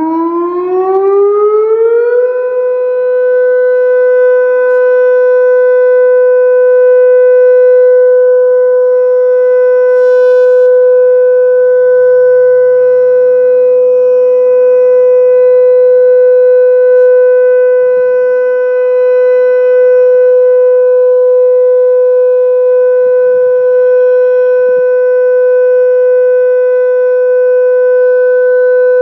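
Federal Signal Modulator 6024 siren sounding the steady all-clear tone. It glides up in pitch over the first two seconds, then holds one loud, steady tone.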